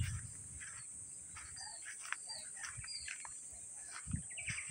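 Small birds chirping in short scattered calls over a steady high drone of insects, with a few low thumps near the end.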